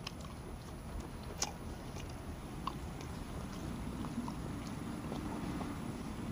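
A person chewing a bite of fried chicken close to a clip-on lapel microphone, with a few faint mouth clicks, over a steady low outdoor background rumble.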